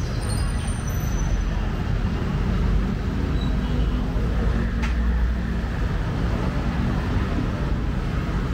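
Street traffic noise: a steady low engine rumble from motor vehicles running close by, with a short click about five seconds in.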